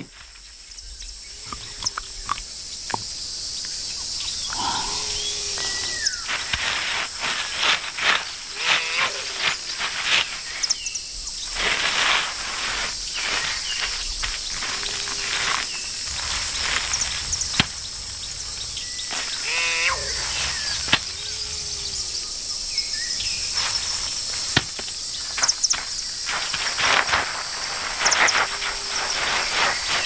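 An iguana scratching and digging in loose soil, in irregular bursts of scraping. Behind it runs a steady high chorus of insects, and a short low call repeats every few seconds.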